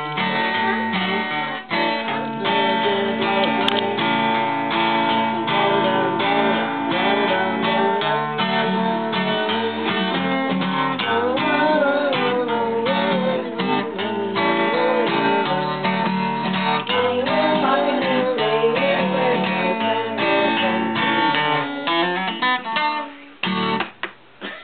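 Acoustic guitar strummed steadily in a rhythmic chord accompaniment, thinning out and stopping shortly before the end.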